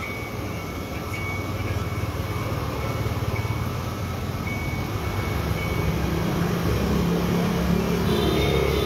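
Street traffic with a motorbike engine rumbling, growing louder over the last few seconds as it comes closer.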